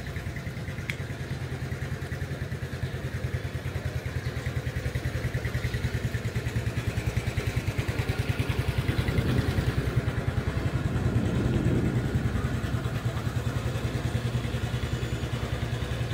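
A small engine running steadily with a fast, even low throb, getting somewhat louder about nine to twelve seconds in.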